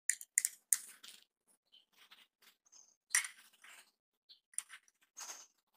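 Faint scattered clicks and scrapes of a copper wire being worked into a switch's screw terminal: a few near the start, a pause, then another cluster about three seconds in and a few more near the end.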